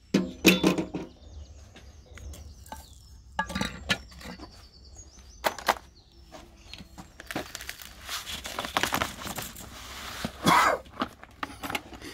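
Sand poured from one galvanised metal dustbin onto quicklime in another: knocks and clinks of the metal bins, with a sandy rushing hiss in the second half as a load slides in.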